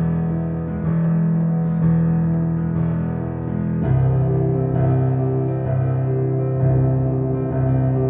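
Keyboard with a piano sound playing sustained chords of a minor-key progression (i–bVI–V), a new chord struck at the start and another about four seconds in.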